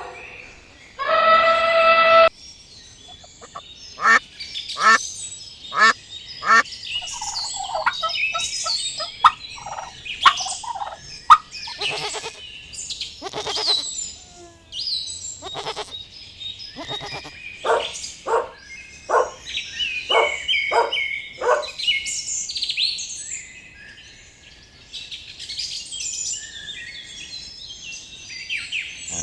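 Domestic poultry calling: one drawn-out call about a second in, then a long run of short, repeated calls, some coming in quick rattling strings, that stop about three-quarters of the way through. Small birds twitter high in the background throughout.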